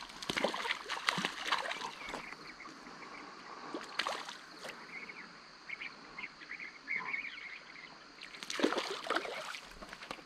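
A hooked rainbow trout splashing at the surface of a creek in irregular bursts as it is played on a tenkara line, loudest about four seconds in and again near the end.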